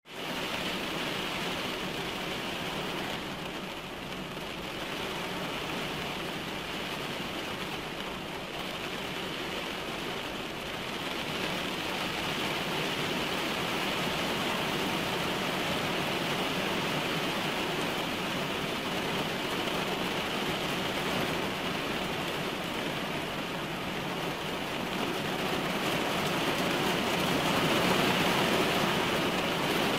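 Heavy rain falling on a car's windscreen and roof, heard from inside the car: a steady, dense hiss of drops that grows a little louder near the end.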